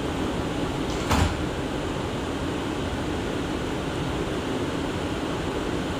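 Inside a stationary R179 subway car: one short thump about a second in, as the sliding doors close just after the door chime. Then the steady hum of the car's air-conditioning and ventilation.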